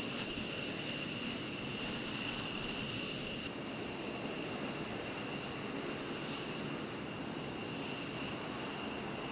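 F-15E Strike Eagle jet engines running at idle: a steady rush with a high whine of several held tones. The sound drops slightly about three and a half seconds in.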